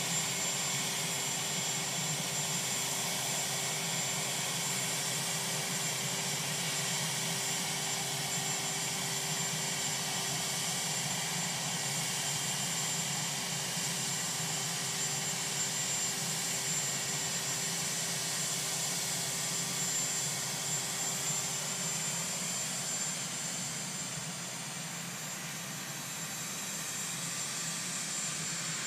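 Marine One presidential helicopter's turbine engines running on the ground: a steady rush of engine noise with a high whine held over it. A lower hum within it drops out about three-quarters of the way through.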